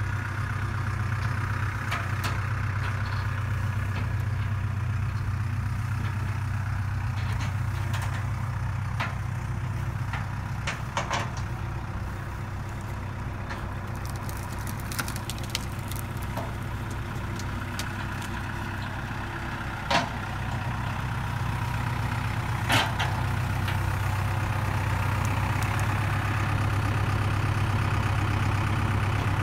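Tractor engine running steadily as it drags a tree, with a few sharp knocks, the loudest about twenty seconds in and another a few seconds later.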